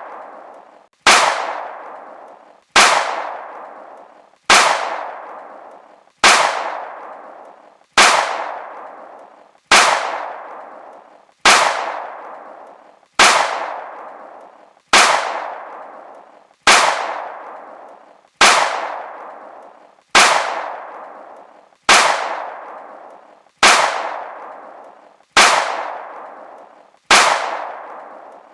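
Gunshot sound effect played over and over at an even pace, about one shot every 1.7 seconds. Each shot is a sharp crack followed by a ringing, echoing tail that fades away.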